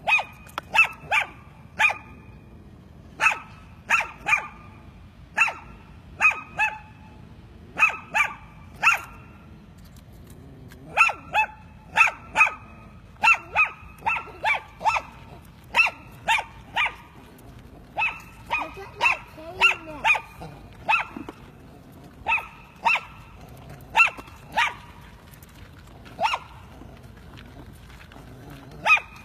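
Small white dog barking defensively, sharp high-pitched barks in quick runs of two to four separated by short pauses, kept up without stopping.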